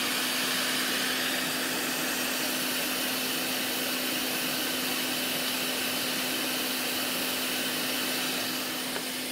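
Hot air rework station (Quick 861DW) blowing a steady stream of hot air, a constant rush of air over a steady low hum, as it heats a fluxed surface-mount chip to melt its solder for removal.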